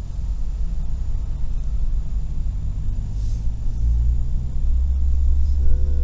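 Cabin rumble of a Suzuki Every kei van on the move: its small three-cylinder engine humming under steady road and tyre noise. The engine hum changes note about four and a half seconds in and the low rumble grows stronger.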